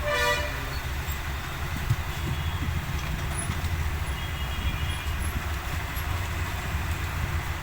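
Steady low rumble of road traffic, with a vehicle horn tooting once at the start and fainter toots a few seconds in.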